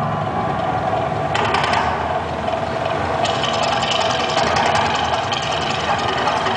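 Mirage volcano show sound: a loud, steady rumble with a fast rattling rhythm that comes in about a second and a half in and grows fuller about three seconds in.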